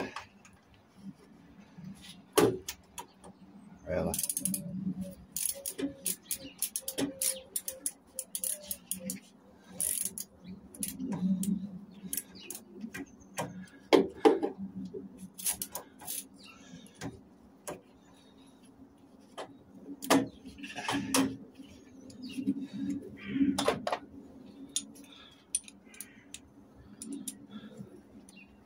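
Scattered metal clicks, knocks and rattles of hand tools working on the casing and fittings of a gas boiler being stripped for scrap, with a couple of sharper knocks.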